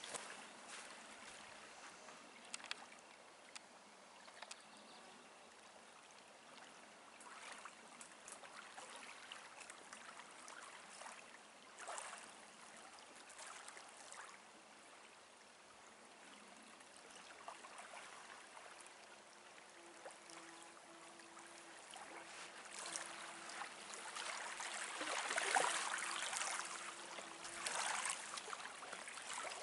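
Small lake waves lapping and splashing at the shoreline, faint at first and growing louder over the last several seconds.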